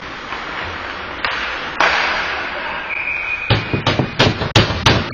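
Ice hockey rink ambience, then a short whistle about three seconds in, followed by a quick run of sharp knocks, about three a second. The knocks are typical of hockey sticks banged on the boards or ice to mark a goal.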